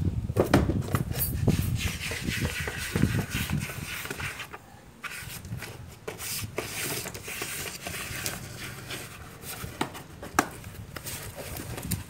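Cardboard box scraping and rustling against a concrete floor as a cat pushes its way into it, with a few sharp taps along the way.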